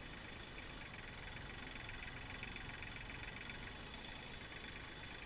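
Kioti CK3510 compact tractor's diesel engine running steadily, powering the hydraulics of a forestry trailer crane as it lifts and swings a log.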